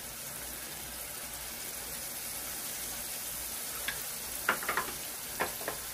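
Broccoli florets sizzling steadily in garlic and olive oil in a frying pan, with a few light clicks and taps about four and a half seconds in.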